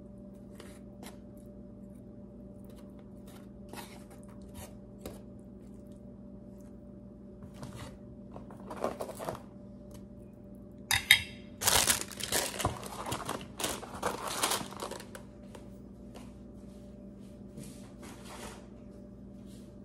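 Packaging and food containers being handled: scattered crinkling, rustling and light clatter, busiest about halfway through. A steady low hum runs underneath.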